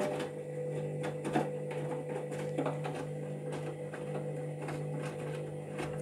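Candy front-loading washing machine filling with water for its pre-wash: water splashing into the drum over a steady low hum, with soft irregular knocks from inside.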